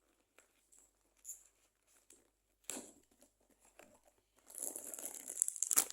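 Blind-box packaging being opened by hand: scattered faint rustles and clicks, a short crinkle near three seconds, then continuous loud crinkling and tearing from about four and a half seconds.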